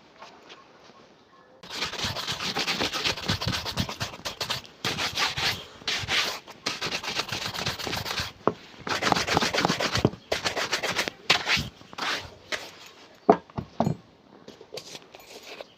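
A shoe being buffed during a shoe shine: runs of quick back-and-forth scrubbing strokes with short pauses, starting about two seconds in. A few sharper clicks come near the end before it stops.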